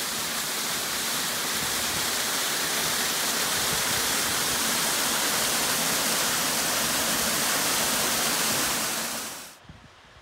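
Waterfall spilling over boulders: a loud, steady rush of splashing water. It cuts off sharply near the end, leaving only a faint hiss.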